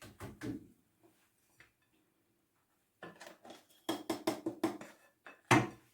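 Kitchen utensils knocking and clattering: a few light clicks, then a quick run of sharp taps and one louder knock near the end, as the simmered root tea is strained through a sifter.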